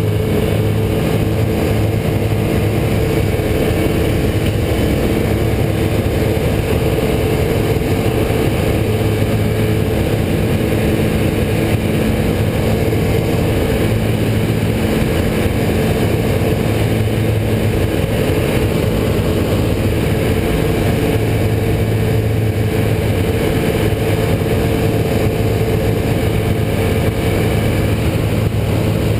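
Rotax 912 flat-four aero engine fed by an Aeroinjector, running steadily at takeoff and climb power with the propeller, heard from inside the light aircraft's cockpit as a constant drone.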